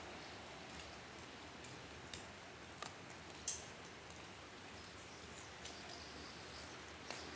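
Faint outdoor background hiss with a few scattered sharp clicks, the loudest about three and a half seconds in, and a faint high chirping around five seconds in.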